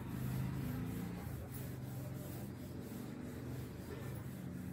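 A chalkboard being wiped clean with a duster, in repeated rubbing strokes across the board.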